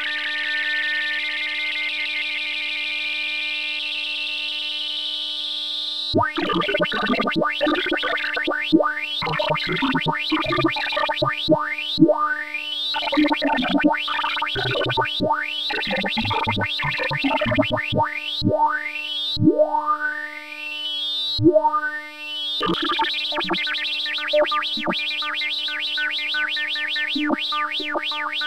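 Sine-wave tones generated by sorting algorithms, each comparison of two values sounding tones pitched by those values. First comes a dense cluster of steady tones from a selection sort, its pitch climbing over the first six seconds. Then a merge sort makes rapid bursts of tones with repeated rising pitch sweeps, and after a brief drop near 22 seconds a gnome sort makes busy, dense tones.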